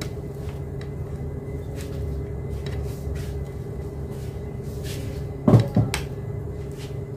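Metal spoon scraping and tapping on a plastic plate as spiced grated-coconut seasoning is scooped out, with a louder clunk about five and a half seconds in, over a steady low hum.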